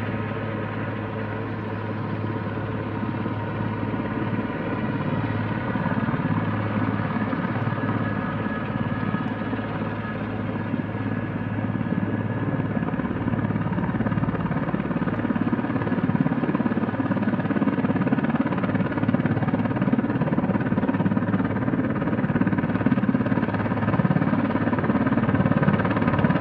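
Helicopter hovering at a distance, its rotor and turbine giving a steady drone with a low hum and a constant whine above it, growing a little louder over the stretch.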